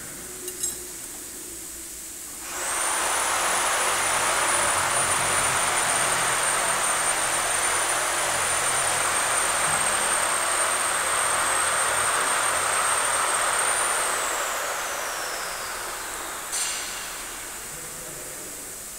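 A high-speed machine starts up with a rushing hiss and a steady, very high whine. It runs for about eleven seconds, then winds down with a falling whine. A sharp click comes near the end.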